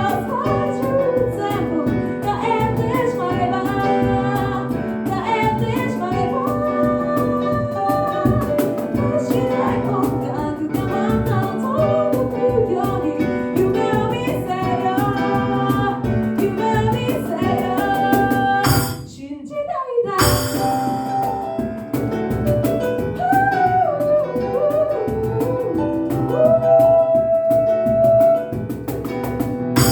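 An a cappella group singing, with a lead voice over harmonising backing voices and a steady beat. The singing breaks off briefly about nineteen seconds in, then goes on, and a long note is held near the end.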